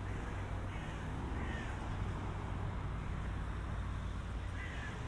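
City street traffic: a steady low drone of vehicle engines.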